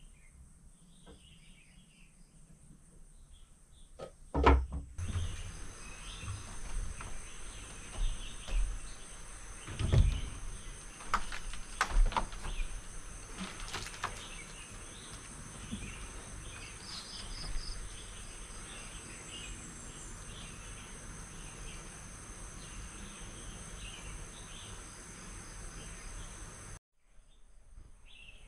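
Outdoor insect chorus, a steady high-pitched trilling, with scattered short chirps. Several low thumps come between about four and fourteen seconds in.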